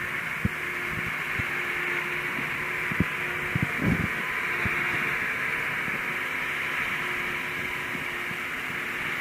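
Diesel farm machinery engines running steadily in a muddy rice field, with a few scattered knocks and clunks.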